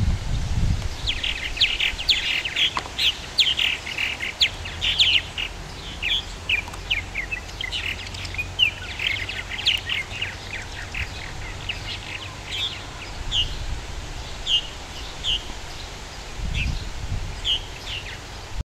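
Purple martins calling at a colony house: a busy run of quick chirps and chatters that thins out to scattered calls in the second half. A brief low rumble comes at the start and again near the end.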